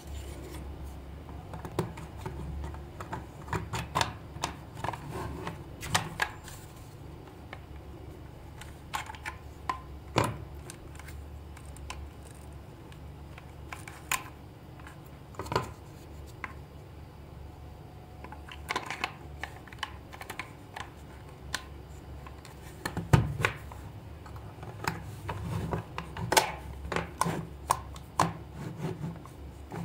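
Hard plastic toy casing parts being handled and fitted together: irregular clicks, taps and knocks of plastic on plastic, some louder snaps among them.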